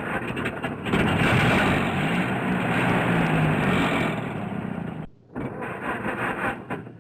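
Muscle car engine starting up and revving, holding the revs for a couple of seconds before dropping back. About five seconds in the sound breaks off briefly, then an engine runs again.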